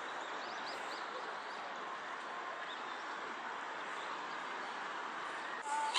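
Steady outdoor background hiss with a few faint, short bird chirps about half a second to a second in. Just before the end the sound changes abruptly and gets louder, with a held whistling call.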